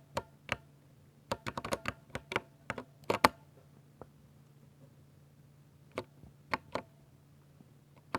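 Typing on a 60% mechanical keyboard with Ducky silver switches: a quick run of keystrokes for about three seconds, with the loudest cluster at the end of it. After a pause of a couple of seconds come a few more single keystrokes.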